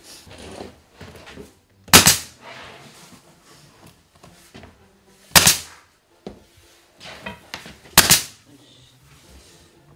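Nails being driven into wooden floorboards: three sharp single strikes, each two and a half to three seconds apart, with light handling noise between them.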